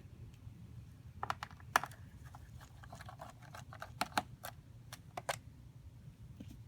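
Irregular small clicks and taps of hands and tools handling a laptop's plastic case and parts during a RAM upgrade, over a low steady hum.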